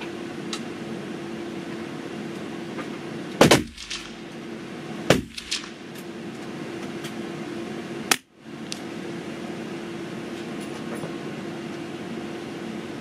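Pedersoli Black Widow .22 LR rifle firing a single shot about three and a half seconds in, followed by two more short, sharp sounds, the first about a second and a half later and the second near the middle, over a steady hum.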